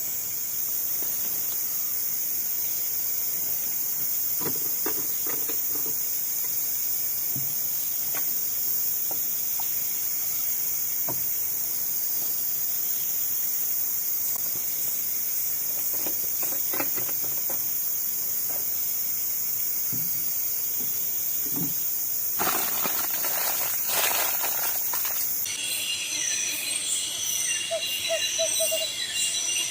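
A steady, high-pitched insect chorus in tropical forest, with a few faint knocks. A louder rustling burst comes about three-quarters of the way in, and near the end jingling music comes in.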